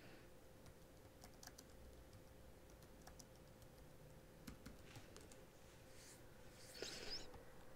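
Faint typing on a computer keyboard: a scatter of light key clicks, with a brief, slightly louder noise near the end.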